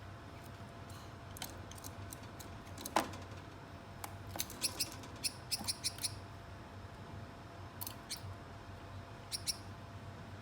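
Gouldian finches giving short, high chirps, scattered and then in a quick run of several about halfway through, with a sharp click about three seconds in.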